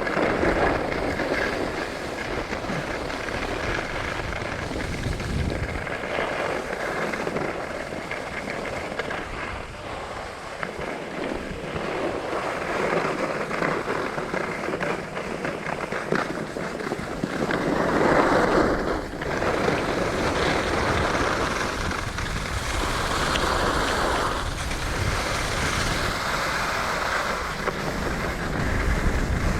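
Skis scraping and carving over packed snow in a continuous rattling hiss that swells and fades with each turn.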